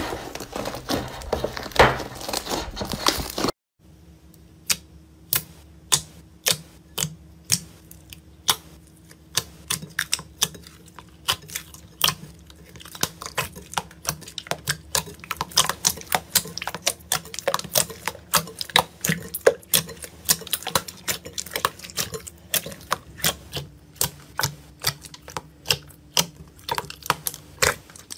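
Hands squeezing and folding slime make a dense, steady rubbing sound for the first few seconds. Then, after a sudden cut, fingers poke and squeeze glossy slime in a glass bowl, giving sharp, irregular pops and clicks as air pockets burst, one to three a second, over a faint steady hum.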